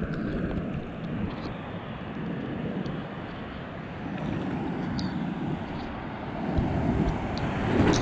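Rough surf washing in around a camera at water level: a steady rushing of foaming water that swells twice, loudest near the end as a wash of foam surges over the lens. Small sharp ticks of splashing water come through on top.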